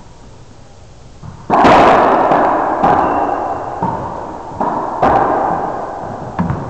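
Racquetball hits: a loud smack of the ball about a second and a half in, then several more sharp cracks of the ball off racquets and walls during the rally, each ringing out in the echo of the enclosed court.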